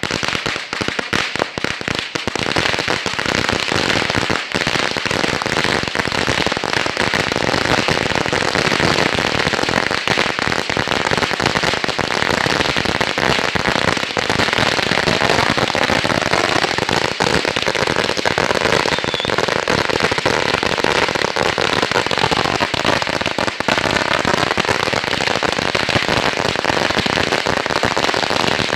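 A long strip of about 16,000 firecrackers going off in an unbroken rapid crackle of bangs. The bangs come a little more sparsely for the first two seconds, then settle into a dense, steady rattle.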